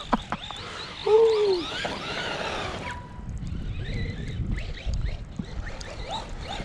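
Arrma Big Rock 3S RC monster truck's brushless motor whining up and down in pitch with bursts of throttle, over a low rumbling noise from the truck running through snow.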